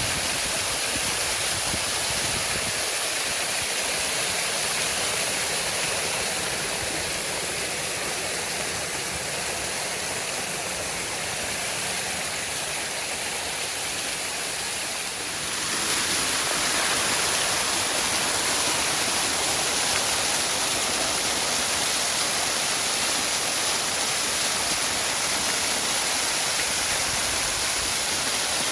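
Waterfall: water rushing and splashing steadily, turning louder and brighter about halfway through.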